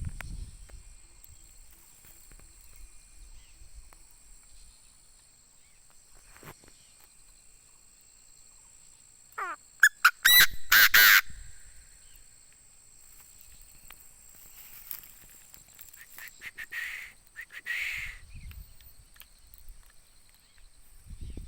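Chinese francolin calling: a short, loud burst of harsh call notes about ten seconds in, then two fainter calls around seventeen and eighteen seconds. These are the calls of a francolin kept as a decoy bird.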